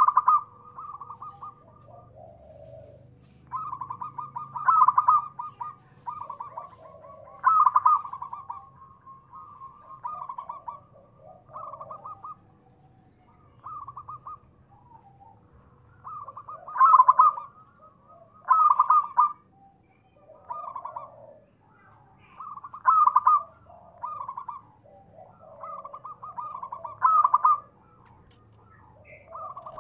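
Zebra dove (perkutut) cooing: phrase after phrase of quick staccato coos, the loudest phrases coming every second or two with softer ones in between. A faint steady hum runs underneath.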